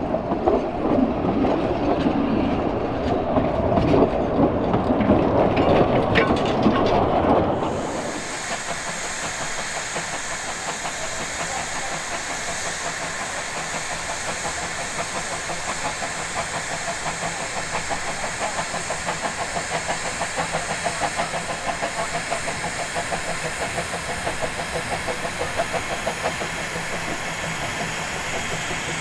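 Narrow-gauge railway coaches rolling past close by, wheels clicking over the rail joints. About eight seconds in this gives way abruptly to a small narrow-gauge steam locomotive working a train, with a steady hiss of steam and an even, rapid beat.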